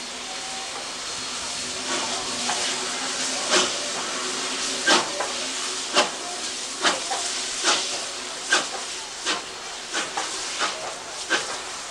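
South Australian Railways 520-class steam locomotive 621 starting away, its open cylinder drain cocks hissing steadily. From about two seconds in come sharp exhaust chuffs that quicken as the engine gathers speed.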